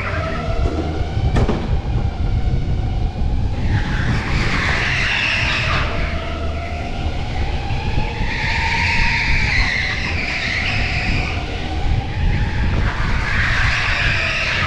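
Electric go-kart at racing speed: the motor's whine glides up and down with speed, over a steady rumble from the chassis. The tyres squeal through corners three times: about four seconds in, in the middle, and near the end.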